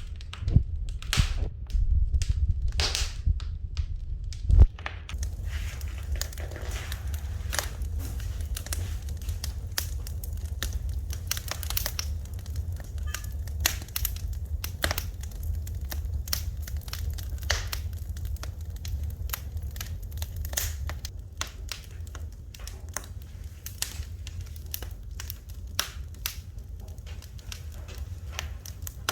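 Wood fire crackling in a fireplace: irregular sharp pops and snaps over a steady low rumble, with one louder pop a few seconds in.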